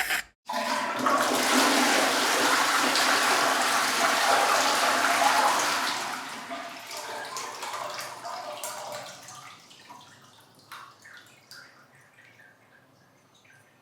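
Water rushing loudly for about five seconds, then dying away over the next few seconds into faint trickles and drips.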